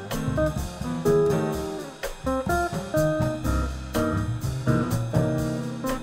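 Jazz quartet music: an electric guitar plays a melody of short plucked notes over upright bass and drums, with a regular cymbal beat.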